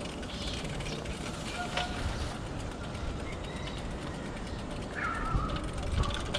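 Steady rumble of a bicycle riding over a rough path, picked up by a chest-mounted action camera, with a few short high squeaks and light knocks, one squeak about five seconds in.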